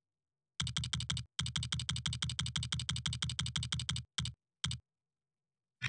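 A rapid run of evenly spaced clicks, about nine a second, with a short break about a second in. The run stops about four seconds in, and two single clicks follow.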